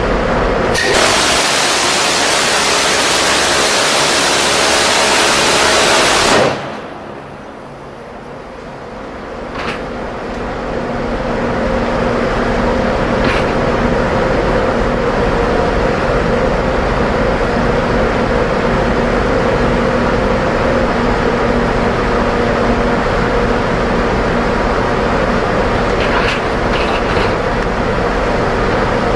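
Phalanx CIWS 20 mm six-barrel Gatling cannon firing one long continuous burst of about six seconds, which starts and stops abruptly. A steady mechanical hum with a low whine follows, with a few faint clicks.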